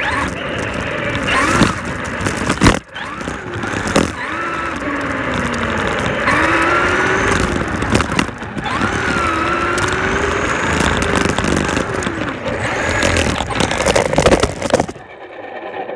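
Traxxas Slash radio-controlled truck driving hard. Its motor whine rises and falls with the throttle over a steady rush of tyre and drivetrain noise, with a couple of sharp knocks in the first few seconds. The noise drops away near the end.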